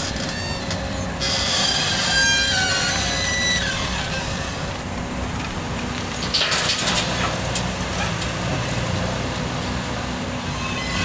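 JCB tracked excavator's diesel engine and hydraulics working under load, with a high metallic squeal about a second in as the loaded arm lifts and swings. About six seconds in comes a burst of crashing and rattling as sand and gravel drop from the bucket into the steel bed of a tipper truck.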